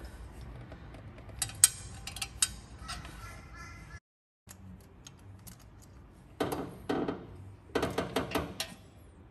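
Ratchet wrench and socket clicking and clinking on the 10 mm exhaust manifold nuts as they are undone, with scattered clicks early on and two quick runs of rapid ratcheting later.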